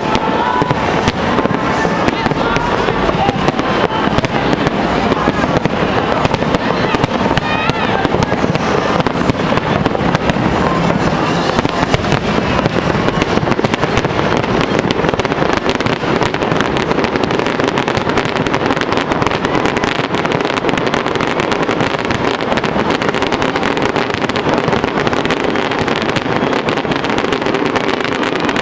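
Fireworks display going off without a break: a dense, continuous run of bangs and crackles.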